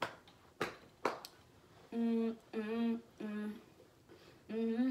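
A woman humming a short three-note tune, each note held steady for about half a second. The phrase starts about two seconds in and repeats near the end. A few light clicks come before it.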